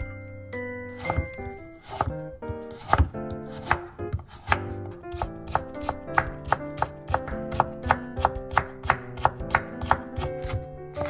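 Chef's knife cutting carrot into thin matchsticks on a wooden cutting board. The strikes are irregular at first, then from about halfway settle into a steady run of about three a second, over light background music.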